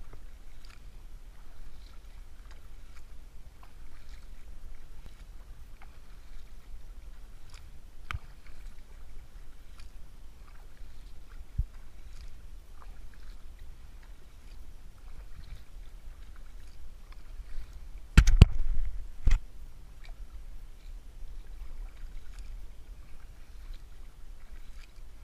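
Stand-up paddle board paddling on calm water: soft paddle strokes and drips, with a few loud sharp knocks about three quarters of the way through.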